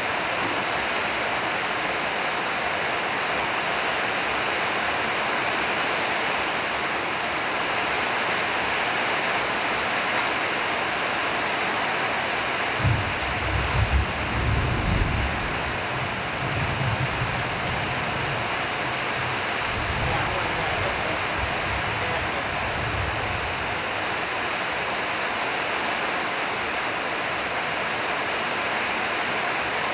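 Steady, even rushing noise throughout, with a few low muffled sounds around the middle.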